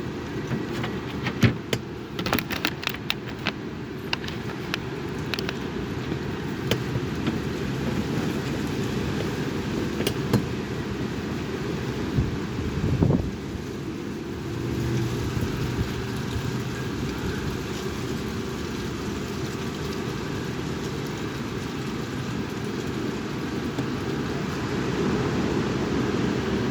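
Strong wind buffeting the microphone as a steady low rumble. A run of sharp clicks and rattles comes in the first few seconds, with a few more scattered later.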